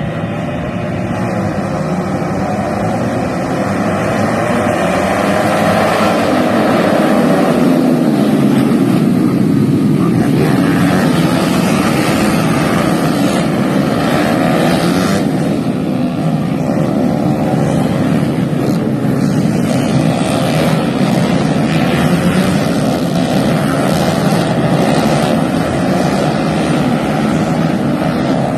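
Several 125 cc four-stroke underbone racing motorcycles running hard together, their engines wavering in pitch as they rev. The sound swells over the first several seconds and then stays loud and dense.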